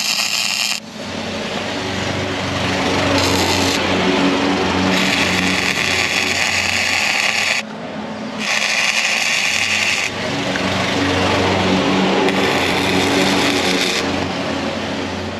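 Wire-feed welder arc crackling and sizzling as it lays beads on steel square tubing. It comes in several runs of a few seconds each, with short breaks between welds.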